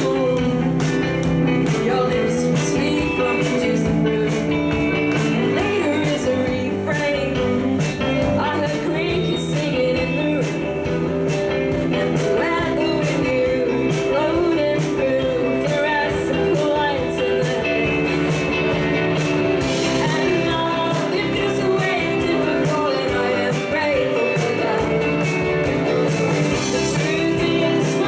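Live indie-pop band playing: a woman singing over electric guitars and drums with a steady beat.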